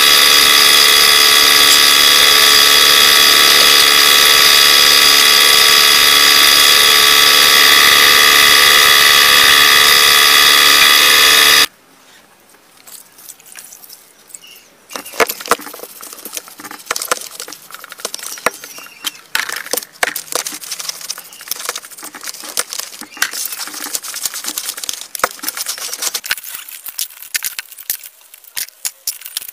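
Air-fed paint spray gun hissing steadily with a whine for about the first twelve seconds, then cutting off suddenly. After that come brushes scrubbing and small metal motorcycle engine parts clicking and clinking in a tray as they are cleaned.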